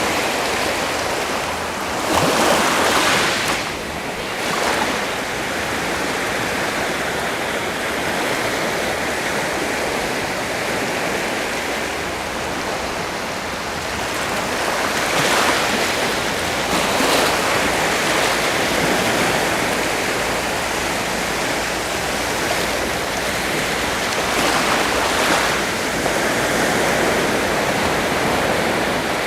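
Sea surf washing in steadily, with louder waves surging in and receding several times: around two seconds in, twice in the middle, and again near the end.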